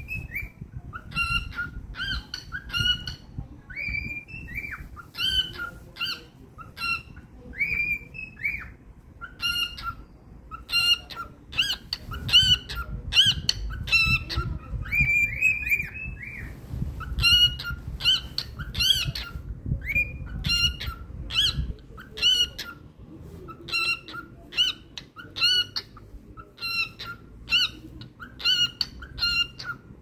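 A cockatiel singing: a long, unbroken run of short chirped whistles and arching, slurred whistles, repeated over and over.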